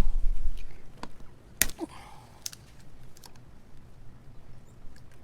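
Handling noise: a few sharp clicks and knocks, the loudest about a second and a half in, with a low rumble in the first half-second.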